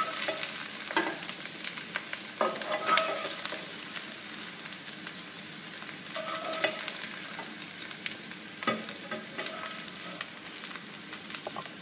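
Chopped okra sizzling in hot oil in a non-stick frying pan while a spatula stirs and scrapes it, with frequent clicks and scrapes of the spatula against the pan. The okra is being lightly browned to take away its starch.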